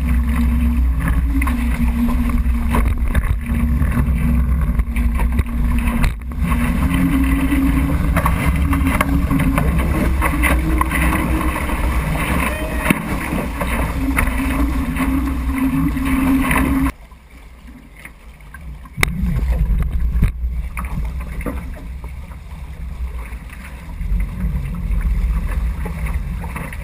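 Wind buffeting the microphone and water rushing and spraying off a Weta trimaran's hulls as it sails at speed, with a steady low hum underneath. The noise drops away suddenly about two-thirds of the way through and comes back a couple of seconds later.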